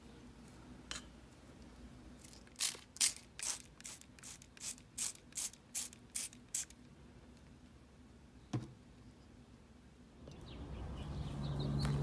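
Hand-pumped spray bottle misting water onto potting soil: about a dozen quick squirts, two or three a second, over about four seconds. A single click follows, and near the end a steady background noise swells in.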